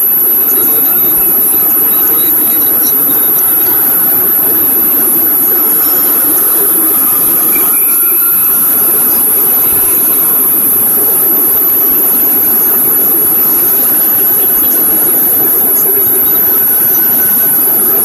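Loud, steady electronic hiss with a constant high-pitched whine over it, unchanging throughout: noise in the microphone and sound-system feed.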